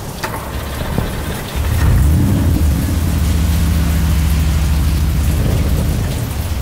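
Rain and a thunder-like rumble. About a second and a half in, a louder steady low drone comes in with a brief rising tone.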